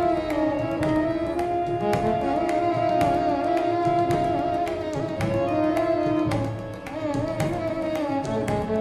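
Background instrumental music: a wavering melody over held drone tones, with regular drum strokes.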